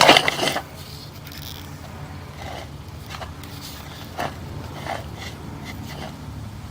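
Sewer inspection camera being pushed down a cast-iron drain line: a steady low hum with a few faint scrapes and knocks, about two and a half, four and five seconds in.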